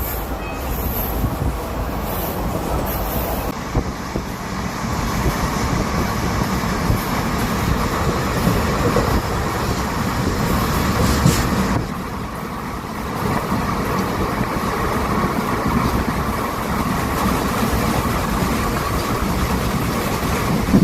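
Mobile sawmill machinery running with a steady mechanical noise that dips briefly around the middle.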